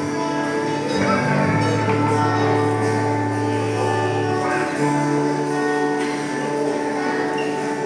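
Live worship band music: acoustic guitar over sustained held chords and a bass line that changes note every few seconds.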